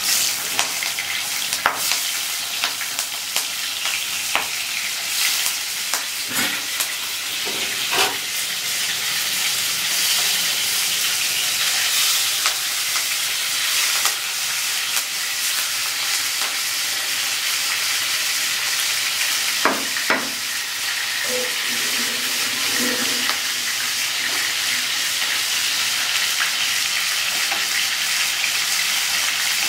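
Turmeric-and-salt-rubbed prawns sizzling as they fry in hot oil in a nonstick kadai: a steady high hiss, broken by a few sharp clinks against the pan.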